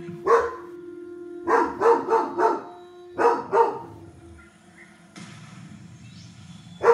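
Dog barking at the television: a run of sharp barks in quick succession, then two more, then a quieter few seconds and a single bark at the end.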